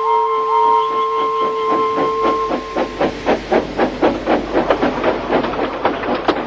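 Steam locomotive puffing at a steady rhythm of about four chuffs a second, the chuffs coming to the fore after a held musical chord stops about two and a half seconds in.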